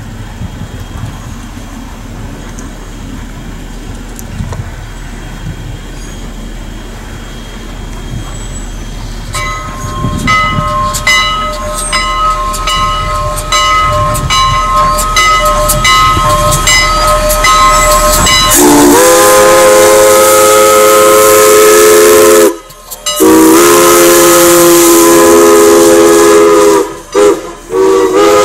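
Wind rumble, then a bell ringing steadily from about nine seconds in. Near two-thirds of the way in, Canadian National 89's PRR three-chime steam whistle sounds: two long blasts, a short one and another long one, the grade-crossing signal.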